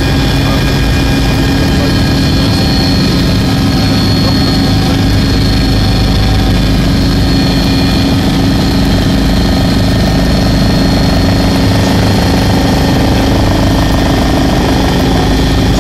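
Helicopter cabin noise in flight: the rotors and engine make a steady drone, with several steady whining tones over it.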